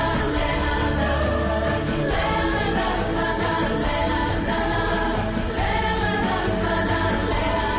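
Background music with singing: a melody rising and falling in repeated phrases over a steady low bass.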